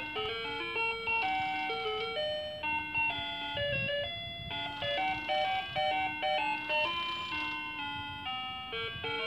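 Mickey Mouse musical clock playing its electronic hourly tune: a simple melody of clear single notes, changing a few times a second.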